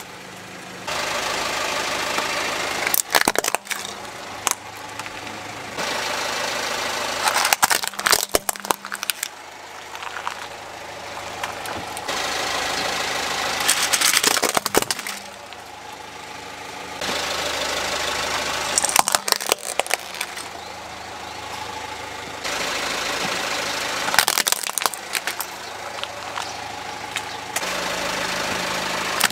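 Hard plastic toys (toy monster trucks, a transforming robot car, a dinosaur figure) cracking and snapping as a car tyre rolls over and crushes them. This comes in five short bursts of sharp cracks, between steady stretches of the car's engine running.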